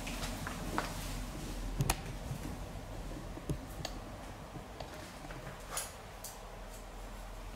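A hairdresser's handling sounds: a few short, sharp light clicks scattered irregularly over soft rustling, the loudest about two seconds in.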